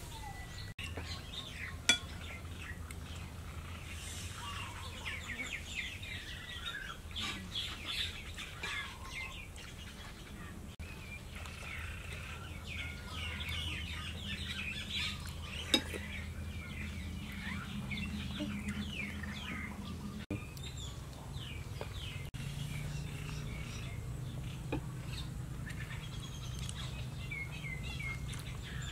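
Small birds chirping, with a low steady hum underneath. Two sharp clinks, like a spoon striking a plate, come once near the start and once about halfway.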